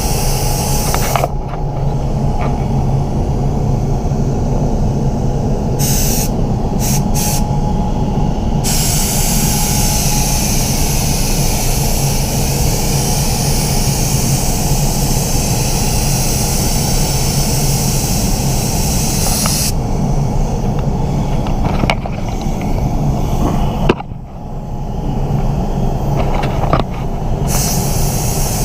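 Compressed air hissing from an automotive spray gun being used to blow dry the fresh silver basecoat: a few short bursts, then one long blast of about ten seconds, and more near the end. A steady low machinery hum runs underneath.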